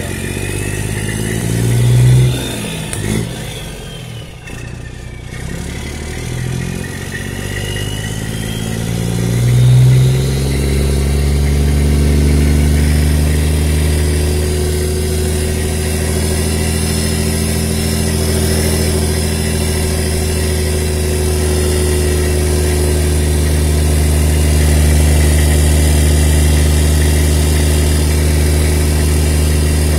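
Straight-piped Detroit Diesel Series 60 turbo-diesel inline-six in an old Freightliner yard truck, heard from the cab with the stack ending just above the door. It is revved briefly twice in the first ten seconds, with a high whine rising and falling, then runs steadily.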